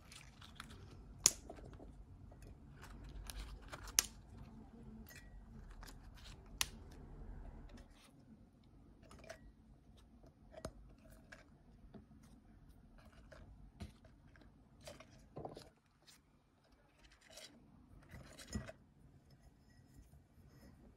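Fresh magnolia petals handled and packed by hand into a glass jar: faint rustling with scattered sharp clicks and taps, the loudest two about a second and four seconds in.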